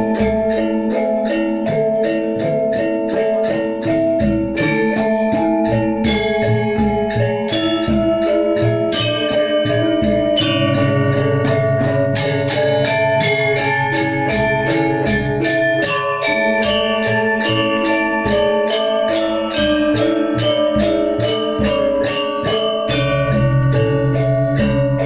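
Balinese gamelan gong gede in seven-tone saih pitu tuning playing: bronze metallophones struck in a quick steady pulse of ringing notes. A deep held tone comes in about ten seconds in and again near the end.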